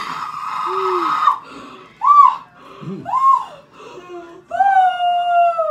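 A woman's high-pitched cries of pain as a black peel-off face mask is pulled from her skin: a held cry, two short yelps, then a long wailing cry near the end.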